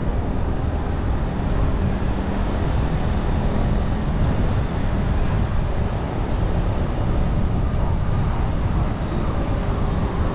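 Steady engine and road noise of a vehicle driving along a town street.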